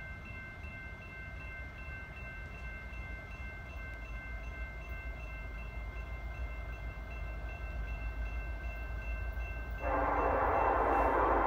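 Railroad crossing bell ringing steadily over a low rumble that slowly grows as a freight train approaches. About ten seconds in, the lead diesel locomotive's multi-chime air horn cuts in loudly.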